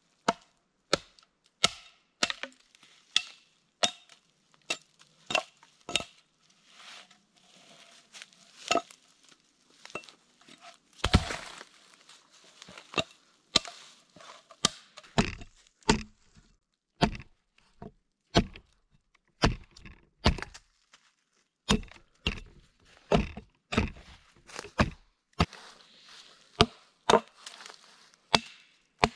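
Axe chopping wood: a steady run of sharp strokes, about one or two a second, with one longer, louder cracking burst about eleven seconds in.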